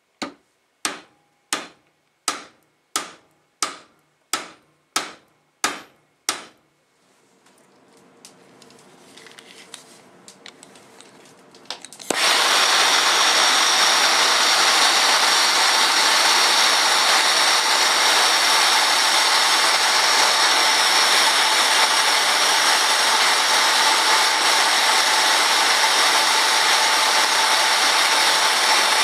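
Ten hammer blows on a ring on a ring mandrel, about two-thirds of a second apart, each with a short metallic ring. Then a faint rising hiss, until about twelve seconds in a hand gas torch catches and hisses loudly and steadily as it heats the ring.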